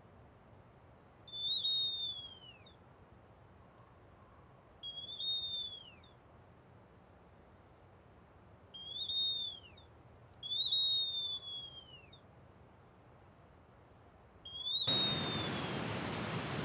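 Hand-turned wooden bird whistle blown in five short calls several seconds apart, each sliding briefly up and then gliding down; the fourth is the longest. Near the end, steady rushing water comes in.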